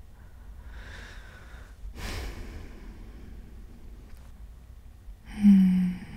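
A man breathing softly and close to the microphone. There is a gentle breath about a second in and a sharper breath about two seconds in, then a short, loud voiced sigh near the end.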